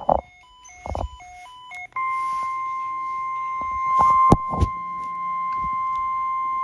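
A short run of stepping electronic tones, then about 2 s in the NOAA Weather Radio warning alarm starts: one steady, loud tone near 1 kHz, held until it cuts off suddenly. It signals a warning alert about to be broadcast. A few sharp thumps and clicks fall over it, the loudest near the middle.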